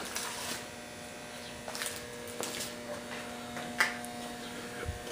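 Steady electrical hum, with a few short clicks and rustles of a plastic-and-aluminium micro ATX PC case being handled; the loudest click comes near the end.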